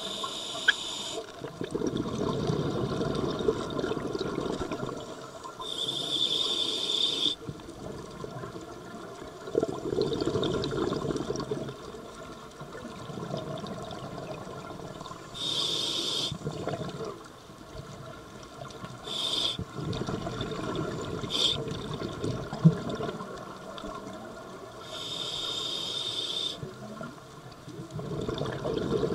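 Scuba diver breathing through a regulator: four slow breaths, each a hissing inhale of a second or two followed by a longer burst of exhaled bubbles. Two brief extra hisses come about two-thirds of the way through, and there is one sharp click late on.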